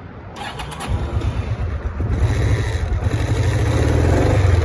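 Honda PC800's liquid-cooled V-twin engine started from cold, catching about a second in, then running with a low pulsing beat that grows steadily louder as it settles into a cold idle.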